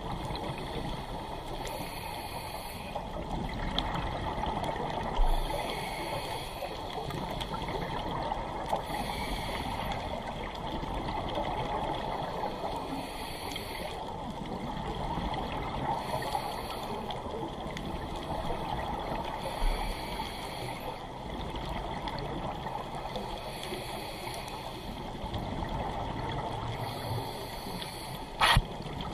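Underwater sound in a dive camera's housing: a scuba diver breathing through a regulator, with a hiss and bubbling that come and go every two to three seconds. A sharp knock comes near the end.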